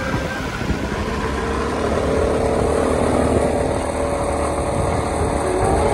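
Motorbike engine running steadily as it rides along a road, with a faint engine whine that swells about two seconds in.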